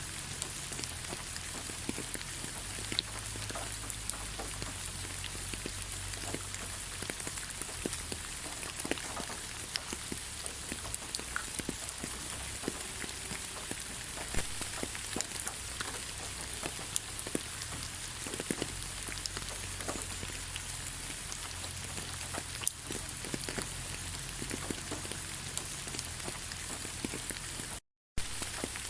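Rain falling: a steady hiss with many separate drops ticking, some louder than others. It cuts out completely for a split second near the end.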